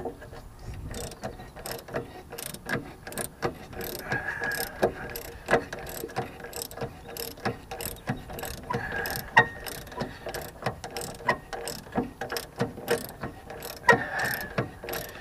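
Socket ratchet clicking, about two clicks a second, as it winds off the loosened bottom nut of a rear shock absorber.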